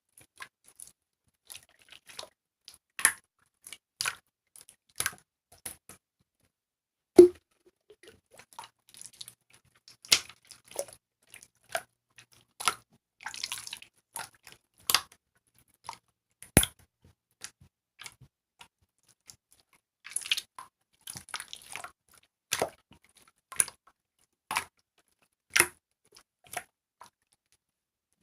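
Translucent marbled slime being squeezed and poked by hand: irregular short sticky clicks and squishes, roughly one a second, with a brief crackly patch midway.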